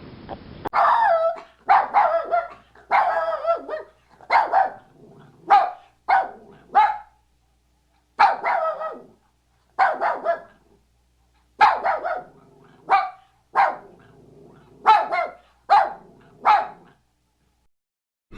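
An animal barking: a long series of short, sharp barks in irregular groups of one to three, with pauses of up to a second and a half between groups.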